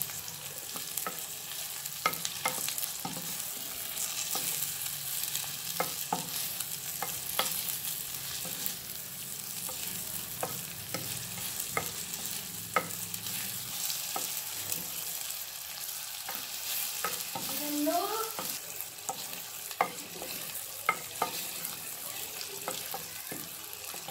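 Chopped onions and ginger sizzling steadily as they fry in a clay pot, stirred with a wooden spatula that knocks and scrapes against the pot again and again.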